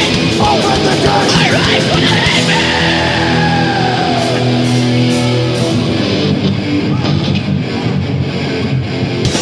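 Thrash metal played by a full band: distorted electric guitars, bass and drums, with a long note sliding down in pitch about three seconds in.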